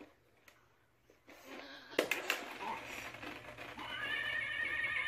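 Recorded horse whinny played back by a child's animal-sounds game: a wavering, quavering call that starts about four seconds in, after a couple of sharp clicks about two seconds in.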